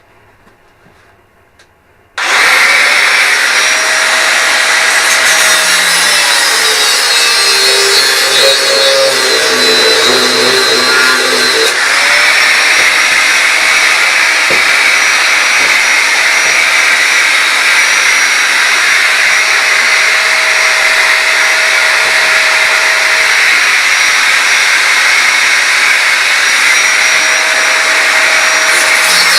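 Angle grinder starting about two seconds in and running continuously on sheet steel, its whine dipping in pitch at times as the disc is pressed into the metal.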